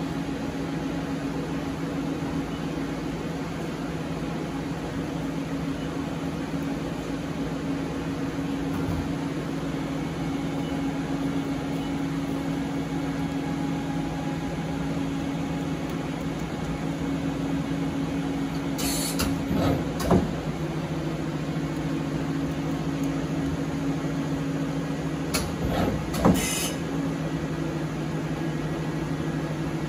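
Mori Seiki ZT 1000Y CNC lathe running at idle with a steady hum. Twice in the second half, about six seconds apart, a short hiss is followed by a sharp click.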